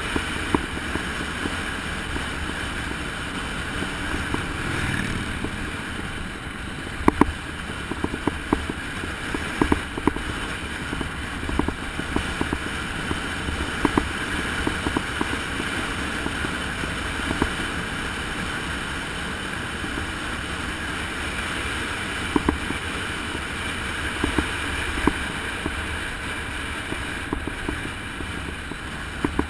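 Steady rush of wind and road noise on the microphone of a camera riding a fast bicycle descent, broken by scattered sharp clicks and knocks as it jolts over the road surface.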